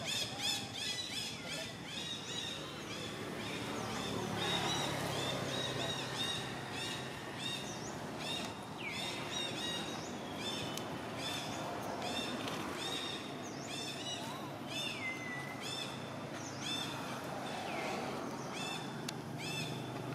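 Outdoor forest ambience of birds or insects calling: short, high chirps repeat several times a second throughout, over a low, steady background hum. Two falling whistles stand out, about nine seconds in and again near fifteen.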